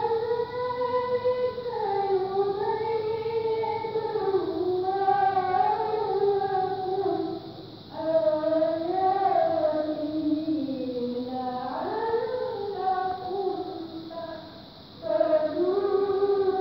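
A middle-aged woman reciting the Qur'an in the melodic qira'ah style: long, ornamented phrases held on a high, wavering pitch, with short breaks for breath about eight seconds in and again shortly before the end.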